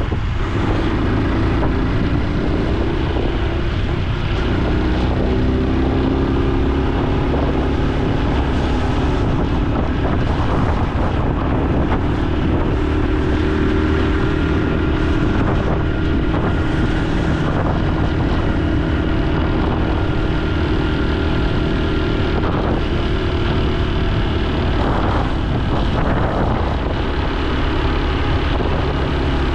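Honda Super Cub C125's small single-cylinder four-stroke engine and exhaust running under way, its pitch rising and falling as the speed changes, with wind on the microphone.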